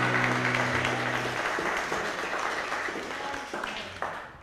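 Audience applause, with the last acoustic guitar chord still ringing under it until about a second and a half in. The clapping thins to a few single claps near the end and fades out.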